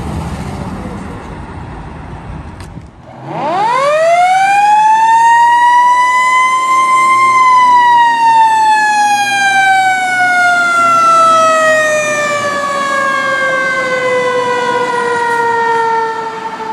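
Road traffic noise as a car drives past, then about three seconds in a mechanical siren winds up over a few seconds to a loud high wail and slowly coasts down in pitch.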